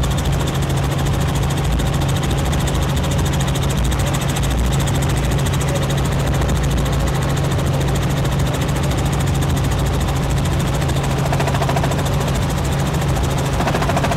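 Helicopter heard from on board in flight: a steady drone of engine and rotor with a constant low hum and rumble.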